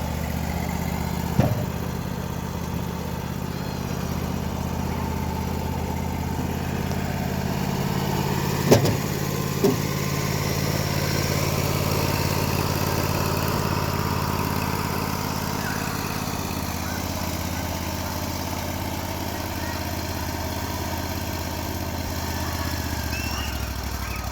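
Engine idling steadily, with a few sharp knocks or clanks: one about a second and a half in and two close together around nine seconds in.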